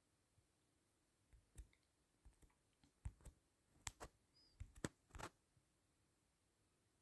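Near silence broken by a series of faint, short clicks and taps, clustered from about a second in until five and a half seconds in.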